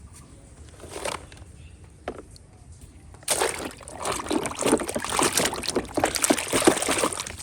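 Water sloshing and splashing as a toy is washed, starting about three seconds in and going on as a busy, irregular splashing. Before that there are only a few faint clicks.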